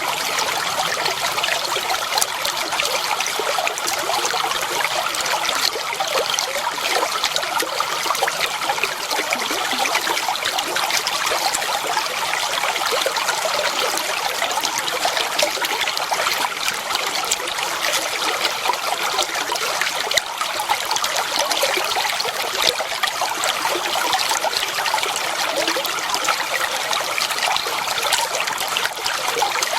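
Shallow clear water flowing and trickling steadily, with a constant fine babble.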